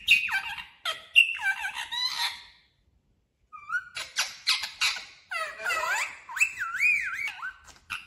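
Rose-ringed (Indian ringneck) parakeet making squeaky chattering calls, short high notes sliding up and down in pitch. They break off for about a second near the middle and end in a wavering warble.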